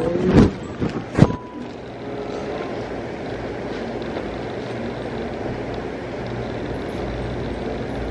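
Electric fan running with a steady whirr and low hum. Two sharp knocks come in the first second and a half.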